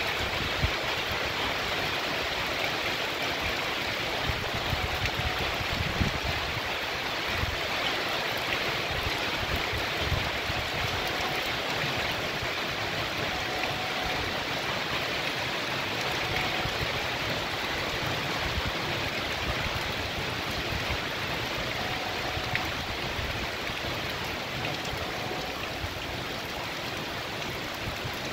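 Heavy rain falling steadily on a street and trees, with water running and splashing over the wet pavement, and occasional soft low thumps.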